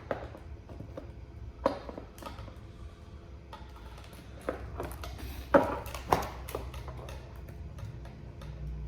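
Hands working cardboard and plastic packaging: scattered light clicks, taps and rustles, the sharpest about five and a half seconds in, over a low steady hum.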